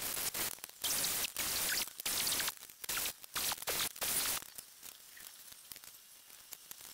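Dremel rotary tool cutting a slot through the aluminium wing spar, a harsh hissing grind in short on-and-off bursts. After about four and a half seconds it stops and only faint noise remains.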